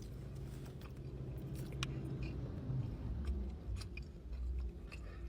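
Close-up chewing of a bite of barbecued rib tip, with short wet mouth clicks, over a low steady hum.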